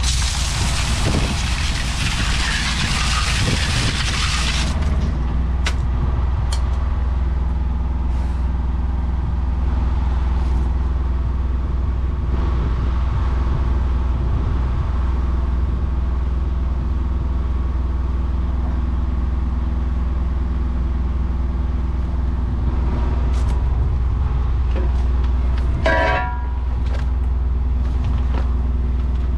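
An engine running steadily with an even low drone. A loud hiss runs through the first few seconds, and a short high squeal comes near the end.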